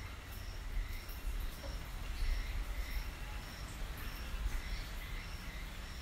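Nature ambience: a short, high chirp repeating about twice a second, with fainter chirps lower in pitch and a low steady rumble beneath.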